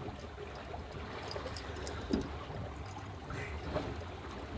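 Water washing and trickling along the hull of a small sailing boat under sail, over a steady low rumble, with a couple of faint knocks.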